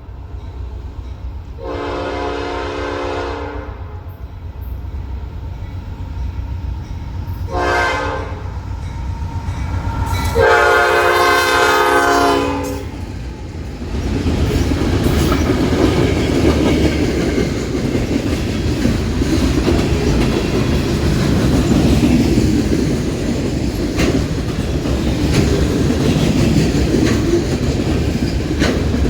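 Norfolk Southern AC44C6M locomotive's five-chime P5 air horn blowing a long, a short and a long blast, the close of a grade-crossing signal. From about halfway through, the locomotive and train pass close by with a loud, steady rumble of wheels and clacking over the rail joints.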